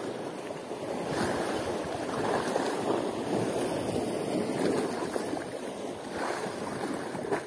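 Sea waves washing in: a steady rush of water that swells and eases a little.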